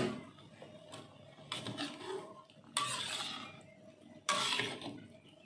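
Metal slotted spatula scraping and stirring through hot broth in a metal wok, in four strokes about a second and a half apart, the last two the loudest.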